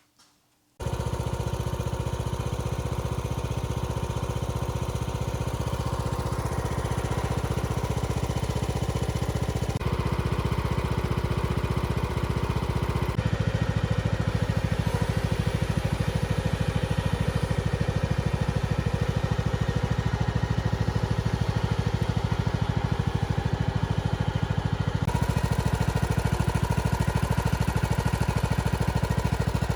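Riding lawnmower engine running steadily while mowing. The sound changes abruptly a few times, at edits between clips.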